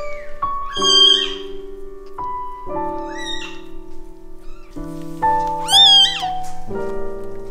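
Newborn kitten mewing three times, thin high cries that rise and fall, the loudest near the end, over soft piano music.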